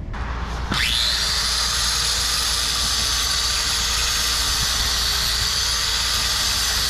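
Angle grinder spinning up with a quick rising whine about a second in, then running steadily with a hissing whine as it grinds metal.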